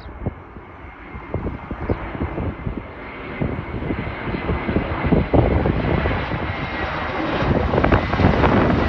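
Airbus A321 jet airliner coming in to land, its engine roar growing steadily louder as it approaches, with a thin steady whine above the roar.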